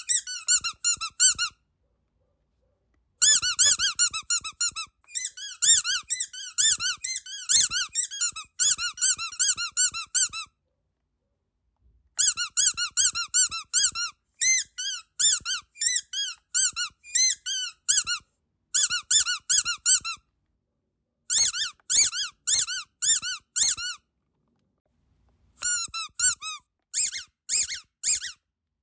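Rubber duck squeaky dog toy squeezed repeatedly: runs of quick, high squeaks, each rising and falling in pitch, broken by pauses of a second or two.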